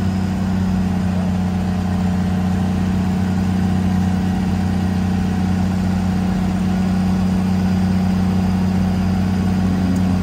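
RED A03 V12 diesel engine of a DHC-2 Beaver running steadily and turning the propeller, heard from inside the cockpit: a steady low drone with an even pitch.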